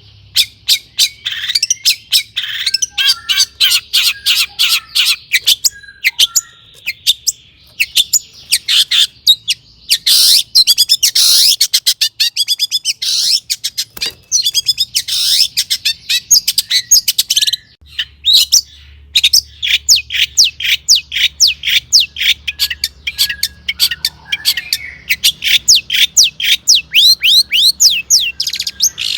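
Long-tailed shrike (cendet) singing energetically: a fast stream of sharp, chattering chirps and trills, many notes a second, with a few brief pauses.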